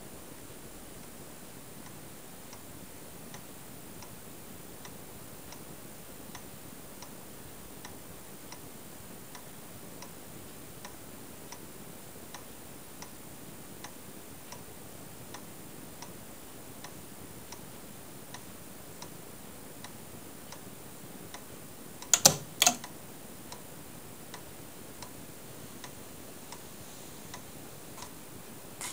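Siemens & Halske electric pendulum master clock ticking faintly and evenly, a little more than one beat a second. About 22 seconds in, its relay gives two loud clicks half a second apart; these are contacts that spark as they open, burnt out by a faulty RC arc-suppression circuit.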